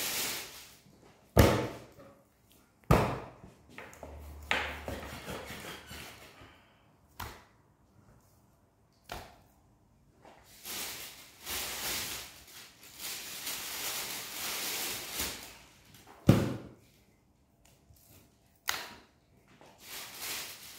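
Separate knocks and thuds of things being handled and set down in a kitchen, with stretches of rustling between. The loudest bangs come about a second and a half in and about sixteen seconds in.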